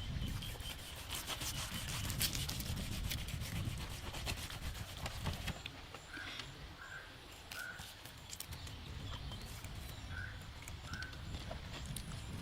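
Crackling and sizzling from beef roasting over an open fire, over a low rumble, the crackle densest in the first half. From about halfway, a short high chirp comes several times.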